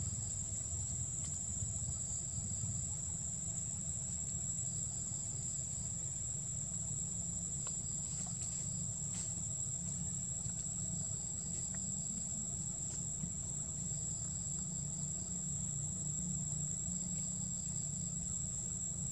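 Steady, high-pitched drone of forest insects, unbroken, over a low steady rumble, with a few faint ticks.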